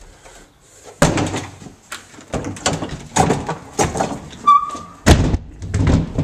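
A series of loud, sudden thumps and bangs, about six of them, with the loudest about five seconds in and a brief high squeak just before it.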